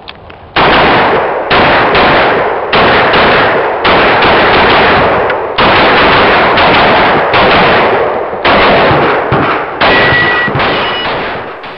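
Open-division compensated race pistol firing fast strings of shots through a practical-shooting stage, starting about half a second in and continuing almost to the end, with brief pauses between strings.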